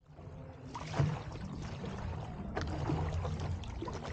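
Water splashing and trickling around a stand-up paddleboard as paddles dip and pull, with a low steady rumble underneath.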